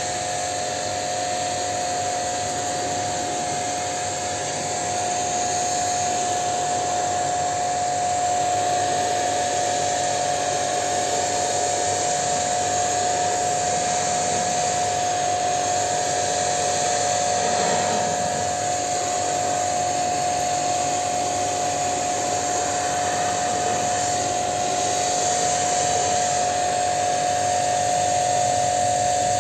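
Pressure washer running steadily with a constant motor whine, its jet hissing as it sprays water onto an air conditioner's outdoor condenser coil to clean it.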